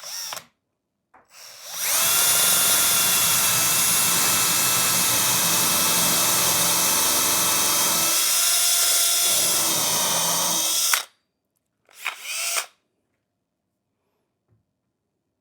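Power drill boring a confirmat screw hole with a stepped countersinking confirmat bit into 3/4 inch melamine particle board. It spins up about a second and a half in, runs steadily under load for about nine seconds, then stops suddenly. There are brief trigger blips just before and about a second after.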